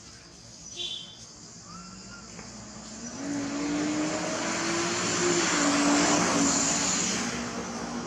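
A motor vehicle passing by: engine hum and road noise swell from about three seconds in, peak, and fade near the end. A short high squeak comes about a second in.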